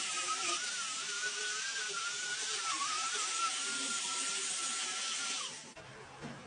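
A small high-speed power tool running steadily with a high whine that wavers slightly in pitch, then stopping about five and a half seconds in.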